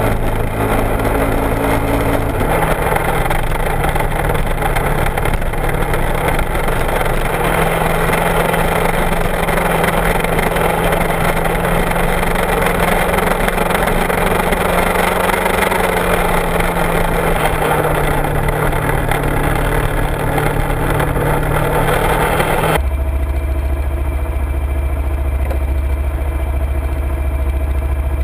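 Kawasaki Ninja 250R parallel-twin with an aftermarket Dan Moto exhaust, riding at road speed with heavy wind rush; its note steps up twice in the first several seconds. About two-thirds of the way in, the wind and riding noise cut off abruptly and the engine idles with a deep, low drone.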